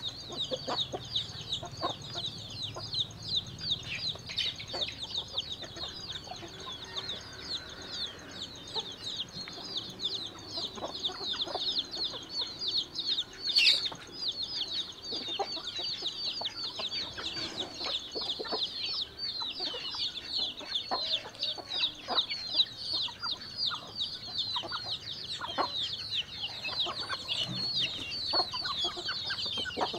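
A flock of chickens calling all at once: a dense, steady chorus of high peeping calls, with scattered light knocks underneath.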